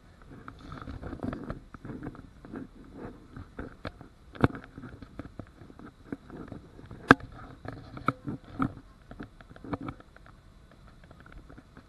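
Handling noise close to the microphone: irregular taps, rubbing and clicks, with two sharper clicks about four and a half and seven seconds in, over a faint cabin background.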